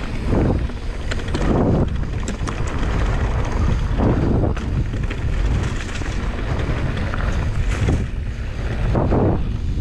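Wind buffeting the microphone while a Canyon Spectral 29 mountain bike rolls along a trail: a steady rumble from the tyres, with sharp clicks and rattles from the bike over rough ground and a few louder surges.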